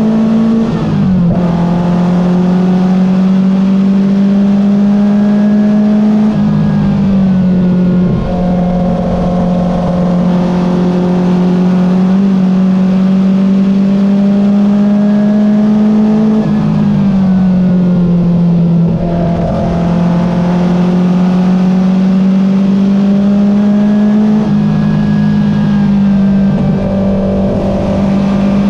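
Porsche 914 race car's engine heard from inside the open cockpit, running hard under load. Its pitch climbs steadily and drops sharply four times.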